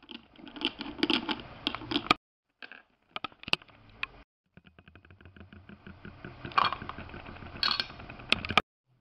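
Small plastic toy figures being handled and set down on a tabletop: irregular clicks, taps and scraping of plastic on plastic and on the table. The sound breaks off abruptly a few times into dead silence, at the video's cuts.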